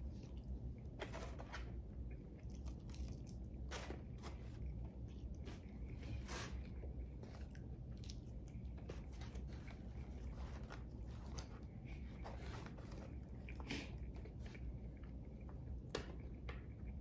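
A man chewing and biting crunchy food close to the microphone, with scattered crisp crunches.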